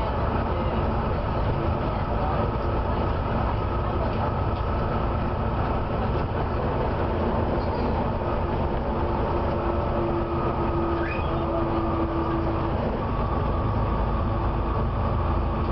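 Volvo B7TL bus under way, a continuous engine and road rumble with steady whining tones over it; the lower whine grows louder about eight seconds in and fades a few seconds later. The bus has a squealing fan belt that screeches under acceleration.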